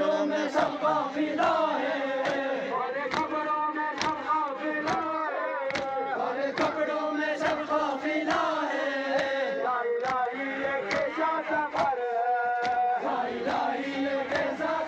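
A crowd of men chanting a Muharram mourning lament (noha) in unison, with sharp strikes about once a second from rhythmic chest-beating (matam).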